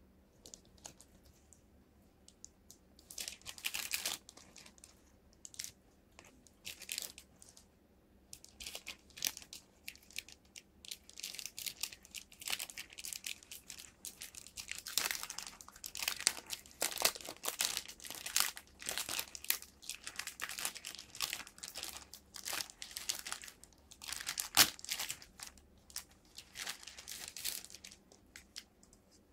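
Clear plastic packaging bag of a toy drawing board crinkling and tearing as the board is unwrapped. The crackling comes in irregular bursts from about three seconds in and grows busier through the second half, with one sharp, louder crackle about three-quarters of the way through.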